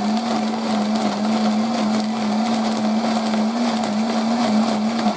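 Countertop electric blender running at a steady speed, its motor humming with the whir and churn of the blades grinding soaked almonds and dates with a little milk into a thick paste.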